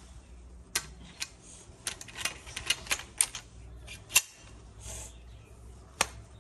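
Metal parts of a Kral A12 shotgun clicking and clacking as they are handled and fitted together during assembly. There are about a dozen irregular sharp clicks, bunched in the middle, with the loudest about four seconds in and another strong one near the end.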